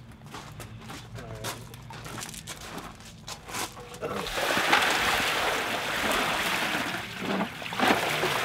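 Gravel crunching under footsteps, then about four seconds in, water gushing and splashing out of a large tipped-over glazed basin onto gravel, a loud rush that lasts several seconds with a second surge near the end.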